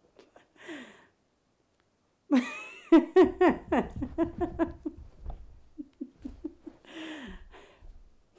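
A woman laughing: a breath in, then about two seconds in a run of short ha-ha pulses that fall in pitch and fade into softer chuckles, followed by breaths in near the end.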